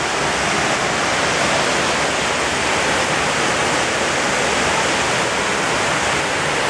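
Steady rush of water from the 9/11 Memorial reflecting pool's waterfalls: thin sheets of water falling continuously down the granite walls into the square basin.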